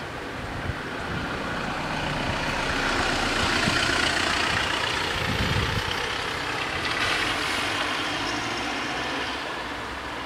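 A road vehicle passing by: engine and tyre noise swells over the first few seconds, peaks, then slowly fades away.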